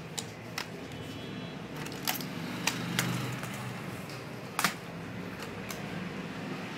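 A handful of short, sharp plastic clicks and taps, the loudest a little past halfway, from a replacement Lenovo G580 laptop keyboard being handled and seated: its ribbon cable latched and its top edge pressed into the palm rest. A steady low hum sits underneath.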